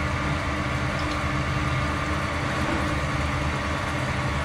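XYZ ProTurn ELX lathe spindle running steadily in reverse to back a tap out of a freshly tapped steel bushing, with coolant splashing off the spinning chuck.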